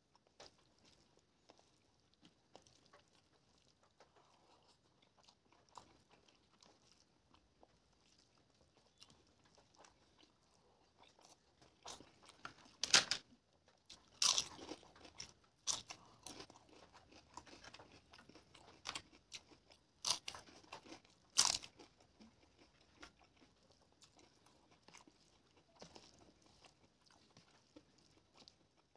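Crisp papad crunching as it is bitten and chewed: a run of loud, sharp crunches in the middle, among quieter sounds of fingers mixing rice and curry and soft chewing.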